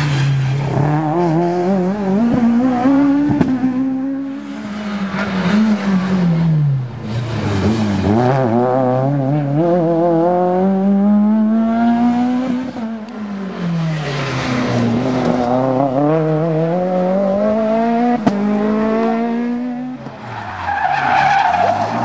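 Rally cars at full speed on a closed tarmac stage, passing one after another: each engine revs hard up through the gears, then drops away on braking and downshifts, so the pitch climbs and falls over and over.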